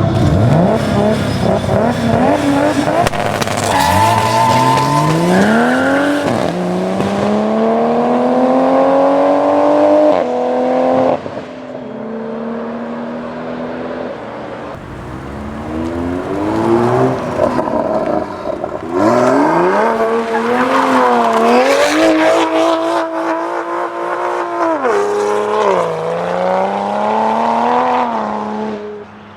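Toyota GR Supra Mk5's turbocharged B58 inline-six revving hard under acceleration, its pitch climbing, then dropping back sharply about eleven seconds in and again near the end.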